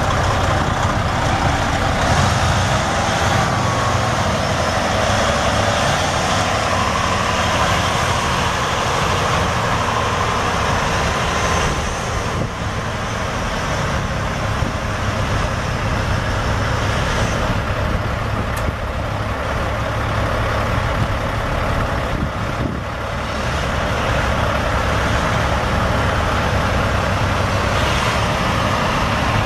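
Detroit Diesel Series 60 14.0-litre inline-six turbo diesel of a 2005 Freightliner Columbia semi truck, running steadily.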